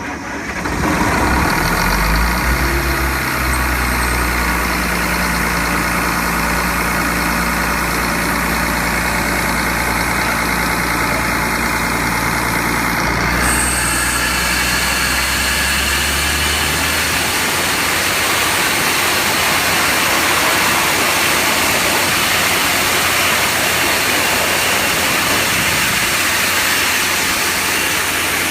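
Industrial air compressor running, with a loud, steady rush of air blasting from it and the low drone of its engine underneath. The rush turns brighter about halfway through, and the engine's low drone falls away about two-thirds of the way in while the air keeps rushing.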